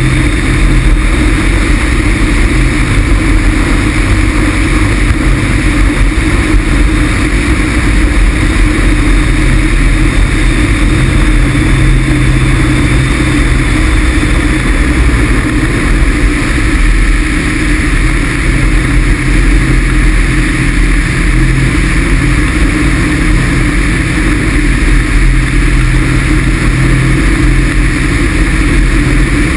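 Loud, steady wind rush over the camera on the wing of a Pegasus XL microlight trike gliding in to land with its Rotax 447 engine off, with a deep rumble underneath.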